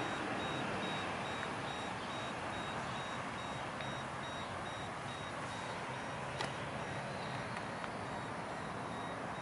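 Steady outdoor background hiss with a faint, high, evenly pulsing tone, and a single sharp click about six seconds in.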